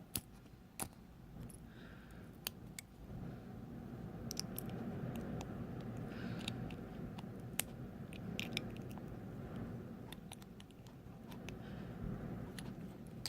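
Scattered small metallic clicks and scrapes of hand tools working on a Corbin half-cylinder lock as it is taken apart, over a low steady rumble.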